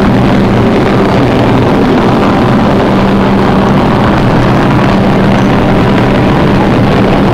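New York City subway train standing at the platform, its equipment giving a loud, steady hum and rumble.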